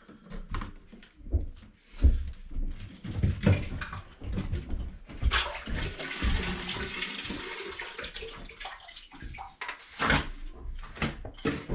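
Water splashing and pouring as a failed sump pump is pulled up out of its flooded sump pit, with knocks and clunks as it is handled; a longer rush of water pouring off it comes around the middle.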